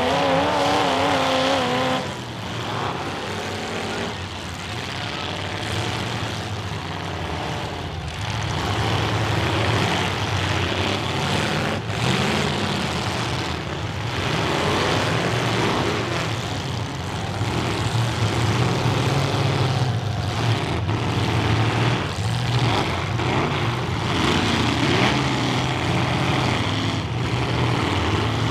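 Several full-size demolition derby cars running and revving hard at once, their engine pitches rising and falling over one another, with a few sharp crunches of cars colliding.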